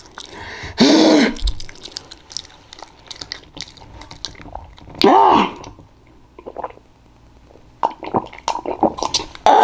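Close-miked chewing and wet mouth-smacking clicks from eating pound cake, with two short wordless vocal sounds, rising then falling in pitch, about a second in and about five seconds in. The smacking clicks come thickest near the end.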